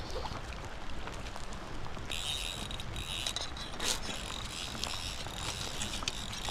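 Fly reel's click-pawl drag buzzing as line is pulled off or reeled in while a hooked fish is played, starting about two seconds in and coming in runs.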